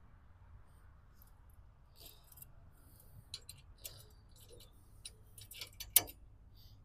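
Scattered light metallic clicks and clinks as the top-link pin is slid through the rotary cutter's hitch, a few sharp ticks with the loudest near the end.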